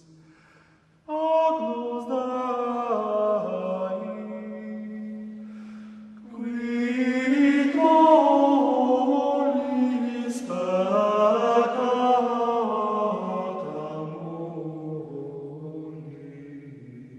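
Slow vocal chant: long held notes sung by voice, gliding slowly from pitch to pitch in two phrases, the first starting about a second in and the second about six seconds in, then fading toward the end.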